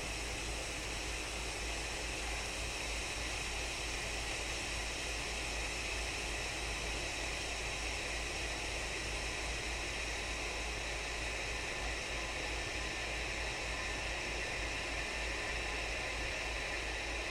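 Tea kettle heating water: a steady hiss with a low hum underneath.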